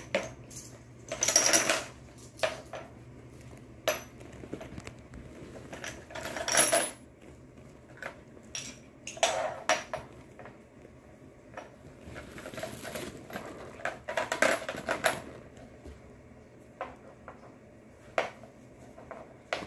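Small toy tea cups and saucers clinking and rattling as they are picked up and set down, in a string of short clatters a few seconds apart.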